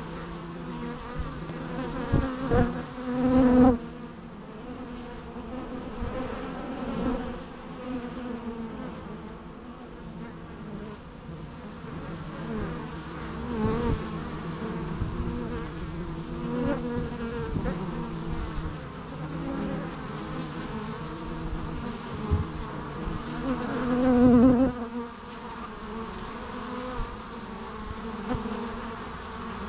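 Bees buzzing, several at once, their hum wavering up and down in pitch as they fly about. A bee passes close and grows loud about three seconds in, and again about twenty-four seconds in.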